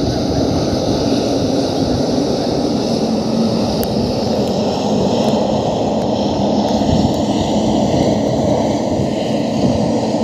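Jet engines of a Boeing 777-300ER, twin GE90-115B turbofans, making a steady rumble as the airliner rolls out along the runway just after landing.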